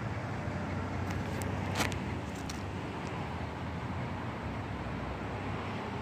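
Steady outdoor background rumble with a low hum, like distant road traffic, with a few short sharp clicks about one to two and a half seconds in.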